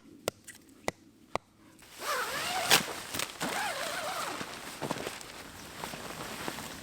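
A few sharp knocks of tent pegs being driven into stony ground, then a longer stretch of rustling and scraping from about two seconds in.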